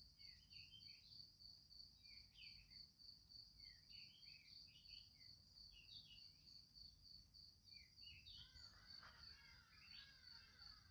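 Faint outdoor ambience: an insect, cricket-like, keeps up a steady high pulsing trill while birds chirp in short calls, busier near the end.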